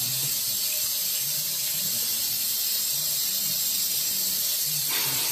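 Tap water running in a steady stream into a sink, splashing onto a wet cat lying under the faucet.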